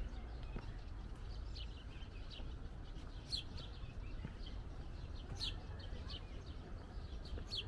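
Small birds chirping in short, scattered calls, a few sharper chirps standing out, over a steady low background rumble.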